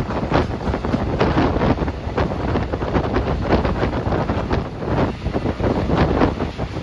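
Wind buffeting the microphone hard, over the running noise of a moving train.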